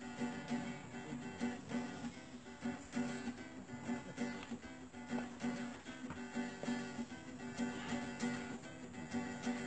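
Music with a strummed guitar and a steady beat.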